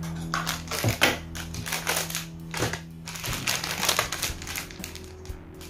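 Plastic-and-foil toy packets crinkling and rustling as they are handled, in a series of short bursts.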